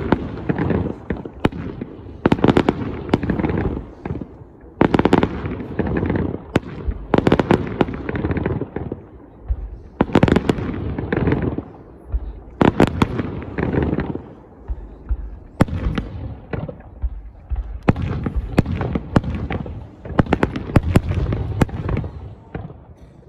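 Aerial fireworks shells bursting in quick clusters, sharp bangs each trailed by a rolling rumble, with a short lull between volleys every two to three seconds.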